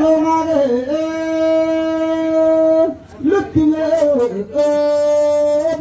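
A man singing a traditional chant in long held notes, each steady for one to two seconds, with the voice sliding down and up between them.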